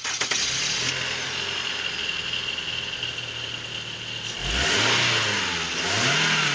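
Car engine running steadily, then revved twice, rising and falling in pitch about halfway through and again near the end.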